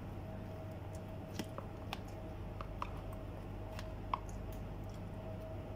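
A person chewing mouthfuls of watermelon, with a few light, irregular clicks of a metal spoon against a plastic tub. A steady low hum runs underneath.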